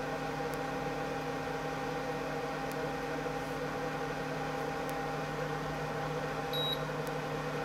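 Repaired induction hob running with no pan on it: a steady hum of several even tones, with one short high beep from its control panel about six and a half seconds in. It keeps running instead of flagging an error for the missing pan, which the repairer takes for pan detection that still does not work.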